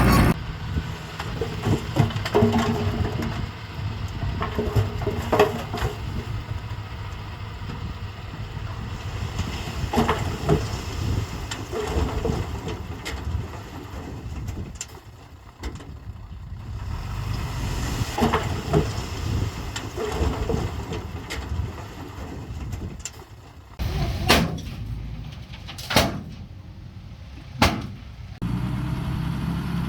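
Heavy earthmoving machine's engine running at work, with irregular metallic knocks and clanks throughout and a few sharper ones near the end.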